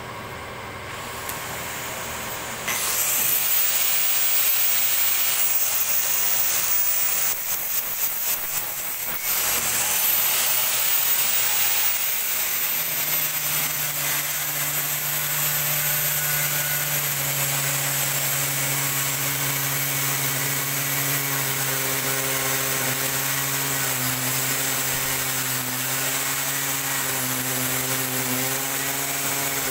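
Handheld angle grinder switched on about three seconds in and running with a steady high whine. From about thirteen seconds in the disc grinds into a 5 mm acrylic sheet, adding a lower, steady hum under the whine.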